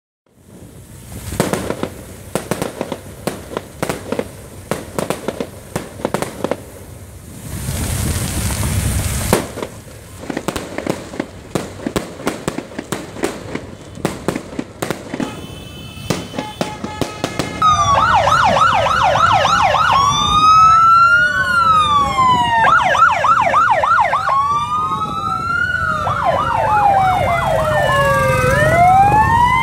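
Police motorcycle sirens. From about eighteen seconds in, an electronic siren switches between a rapid yelp and a slow rising-and-falling wail, with more than one siren overlapping near the end. Before that, irregular sharp clicks and pops over street noise, with a louder rushing stretch about eight seconds in.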